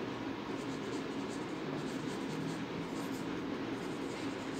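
Marker pen writing on paper: a run of short, faint scratching strokes as a couple of words are written, over a steady low hum.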